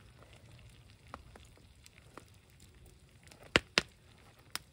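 Wood campfire crackling, with a few sharp pops; the two loudest come close together about three and a half seconds in, and another follows near the end.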